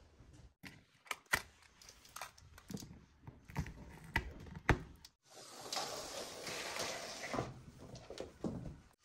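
Scattered light clicks and taps as hands pull a thin string of fairy lights and its clips off a window frame, with about two seconds of rustling a little past halfway.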